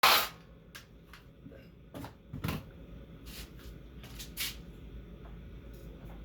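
A sharp knock right at the start, then a string of light clicks and knocks, about eight in all, as of tools and metal parts being handled during disassembly, the loudest about two and a half seconds in.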